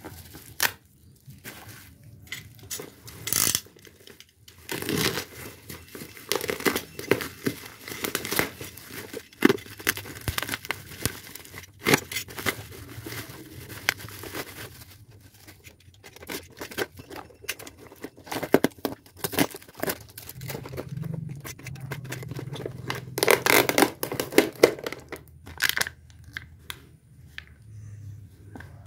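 Plastic packaging being torn open and handled: clear plastic wrap and a thin black plastic bag crinkling and rustling, with short tearing bursts at irregular moments.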